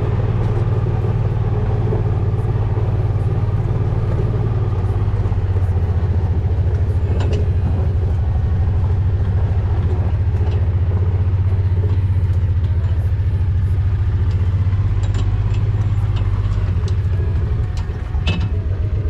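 Kawasaki Mule utility vehicle's engine idling steadily with an even, rapid pulse. It dips briefly and settles near the end.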